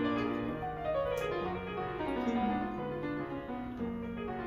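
Background piano music, held notes moving in a gentle melody.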